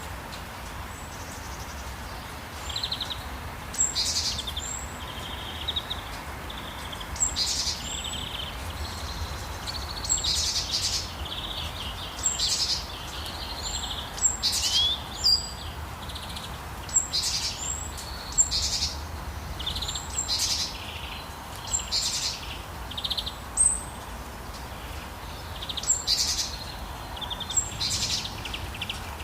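Birds chirping and calling over and over in short, high phrases, over a steady hiss of rain.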